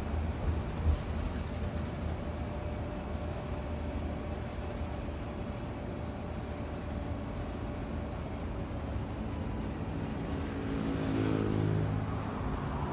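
Bus travelling on the road: a steady engine and road rumble, with a couple of sharp knocks about a second in. Near the end the engine note swells louder, its pitch shifting.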